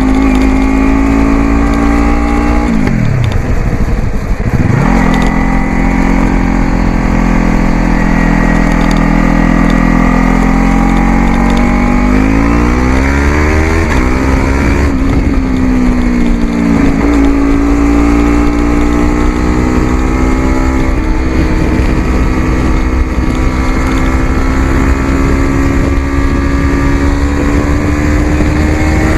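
Yamaha YZF-R3 parallel-twin engine running through an aftermarket Coffman's exhaust as the bike is ridden. The engine pitch drops sharply and climbs back early on, rises about halfway through with two short dips typical of quickshifted gear changes, then holds and slowly climbs.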